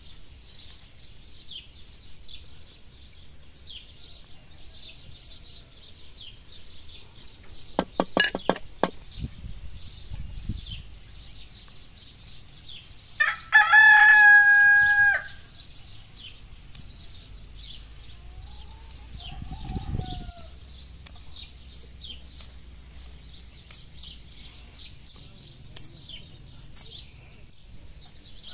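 A rooster crows once, a drawn-out call of about two seconds about halfway through, the loudest sound here. Around it runs a steady scatter of small high chirps, with a brief run of sharp clicks a few seconds before the crow.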